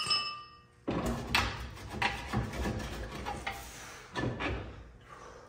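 A hammer blow on the steel front suspension rings briefly at the start, then irregular metal scraping and clunking as the stock spindle is worked loose by hand.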